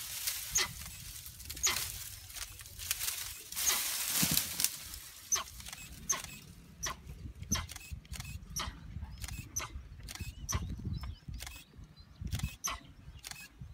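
Camera shutters clicking again and again, a few scattered clicks at first, then rapid runs of them in the second half, over a low rumble.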